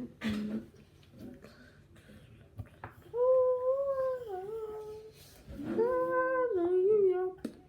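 Two long, drawn-out voice-like notes, each about two seconds, separated by a short pause. Each holds a fairly high pitch and wavers downward near its end.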